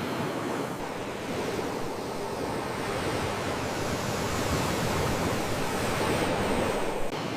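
Sea waves washing in: a steady rush of surf that swells a little louder in the second half.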